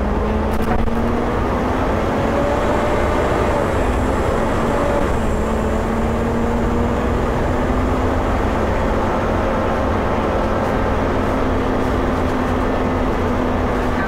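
Volvo B7TL bus's six-cylinder diesel engine running under way, heard from inside the passenger cabin. Its steady whining note is the enthusiasts' "hoover". The whine rises slightly, dips about four to five seconds in, then holds steady over a rumble.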